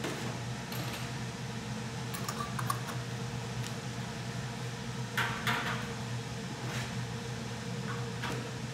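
Steady machine hum of the production room, with a few light clinks and knocks as a metal ladle fills glass jars with thick jam; the loudest clatter comes about five seconds in.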